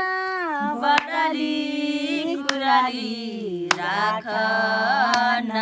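A man singing a Bhailo, the traditional Nepali Tihar carol, in long drawn-out held notes that slide down in pitch and back up. A few sharp clicks sound over the singing.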